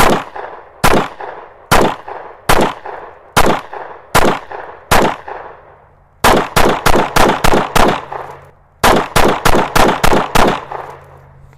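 9mm Glock 45 pistol firing a string of shots, first at a measured pace of a little under one a second, then in two rapid strings of about seven shots each with a short pause between, each shot ringing out briefly.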